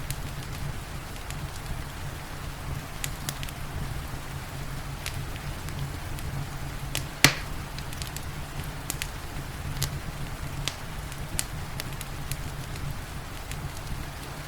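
Wood fire crackling with scattered sharp pops, one much louder pop about halfway through, over a steady low rumble and the even hiss of rain.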